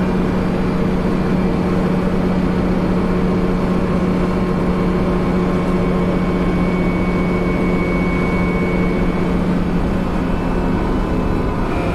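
City bus engine and drivetrain running at a steady speed, heard from inside the passenger cabin: a constant drone over a low rumble.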